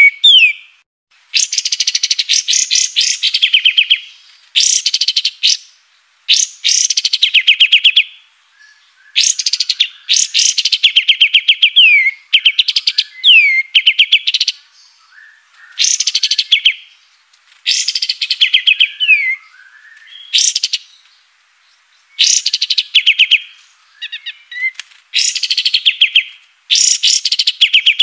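Kapas tembak songbird singing loud repeated phrases of rapid, high, clear notes, each lasting one to three seconds with short pauses between. Many phrases end in a quick downward slur.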